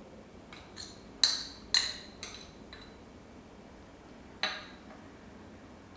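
Steel spoon clinking against a small steel bowl as raisins are scraped out into a glass mixing bowl. A quick run of about six sharp, ringing clinks comes in the first three seconds, two of them loudest, and one more clink comes about four and a half seconds in.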